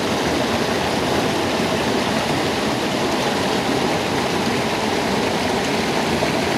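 Creek water rushing steadily over rock slides and small cascades.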